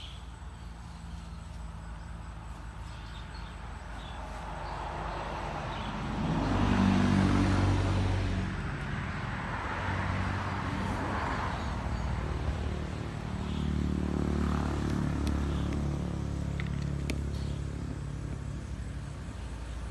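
Motor vehicles passing by: a low engine hum and tyre noise swell to their loudest about seven seconds in, fade, then swell again for a second pass around fourteen seconds.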